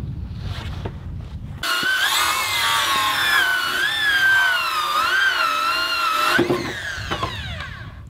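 Cordless circular saw ripping the rough edge off a freshly milled board. The cut starts as a low grinding, then the motor's high whine wavers up and down in pitch under load, and winds down near the end.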